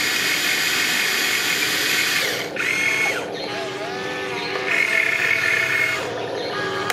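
Small electric gear motors of an RC excavator whining: a steady whir for the first two seconds or so, then shorter stop-start whines at differing pitches as the cab swings and the arm moves.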